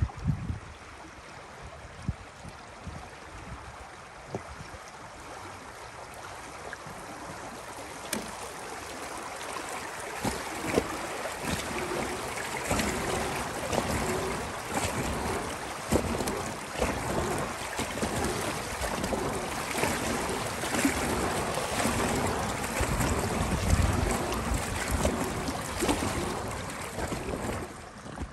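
Kayak paddle strokes dipping and splashing in calm river water, roughly one a second, with water washing along the hull; the splashing grows louder about a third of the way in.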